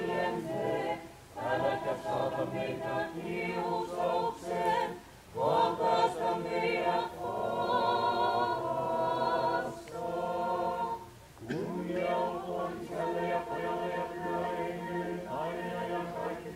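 A choir singing Orthodox liturgical chant unaccompanied, in several voices, in long phrases broken by short pauses.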